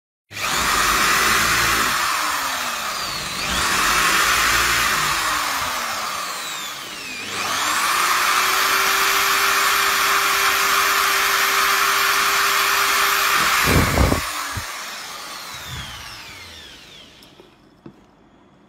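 Electric drill running as its bit bores into a wooden board and then bears on a wristwatch's face. The motor twice slows and speeds up again. A sharp knock comes near the end, after which the motor winds down to a stop.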